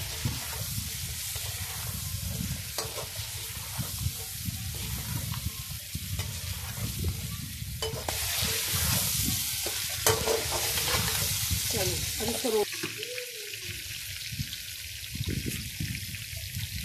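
Goat meat sizzling in hot oil in a frying pan while a perforated metal spatula stirs it, scraping against the pan with occasional clicks. The sizzle swells for a few seconds midway.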